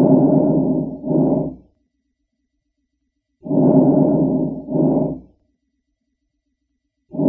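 Breath sounds heard through a stethoscope: a breath about every three and a half seconds, each a longer sound followed by a shorter one, with silence between breaths.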